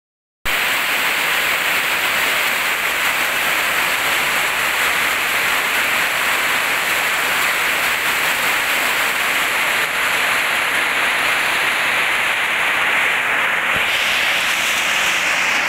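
Heavy tropical rain pouring on corrugated metal roofs: a steady, dense hiss.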